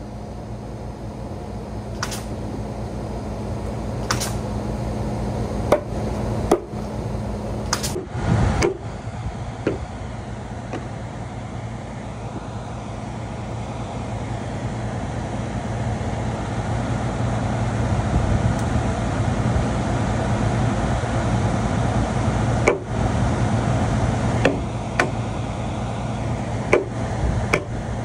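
A steady low mechanical hum, such as a motor or engine running, growing slowly louder, with scattered knocks and clicks, the loudest cluster a few seconds in.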